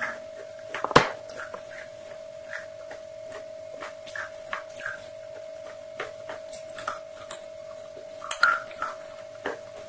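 Close-miked chewing of crispy fried chicken: irregular crunches and wet mouth sounds, with a sharp crack about a second in and a burst of crunching near the end, over a steady humming tone.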